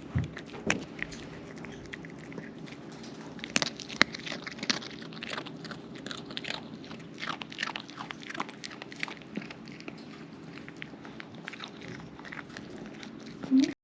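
Crunchy food being bitten and chewed, in irregular crunches over a steady low hum.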